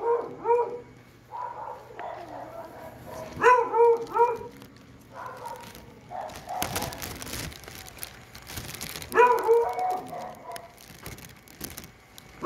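A dog barking in short runs of several high, yelping barks, three times in a few seconds, with quieter stretches between.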